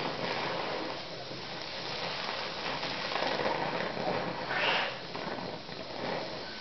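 Brown's gas (oxyhydrogen) torch flame hissing steadily, with a brief louder hiss about four and a half seconds in.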